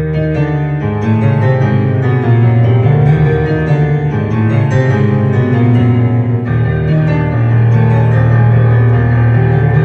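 Yamaha Clavinova digital piano playing a solo pop-song arrangement: full chords over a strong sustained bass line.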